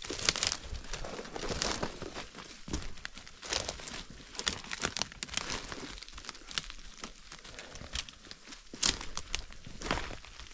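Irregular crunching and crackling of footsteps through dry leaf litter and brush on the forest floor.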